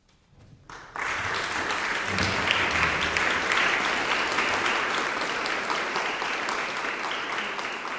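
About a second of near silence, then audience applause breaks out suddenly and goes on steadily, a dense patter of many hands clapping.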